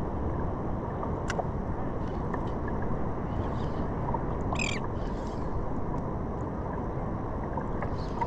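Steady wash of ocean water and wind around a surfboard. There is a single sharp click about a second in and a short high-pitched call near the middle.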